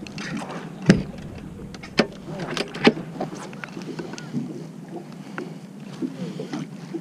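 Steady low hum of a fishing boat, with several sharp knocks and clatter on board, the loudest about a second in.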